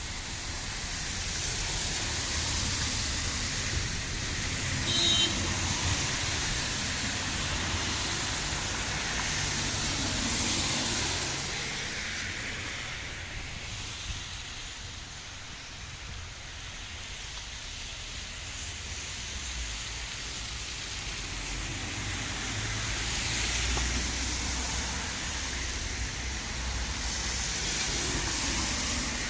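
Heavy rain hissing steadily on a city street, with the swish and rumble of vehicles on the wet road swelling up and fading away twice.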